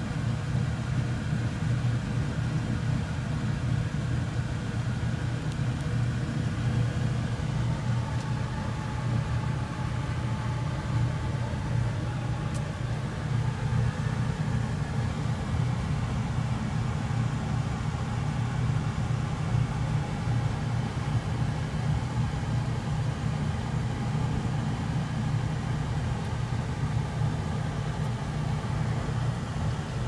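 A steady low machine rumble that does not change, with faint steady tones above it.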